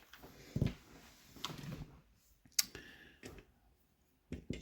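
A few small, separate metallic clicks and ticks from handling a just-picked padlock and its picking tools.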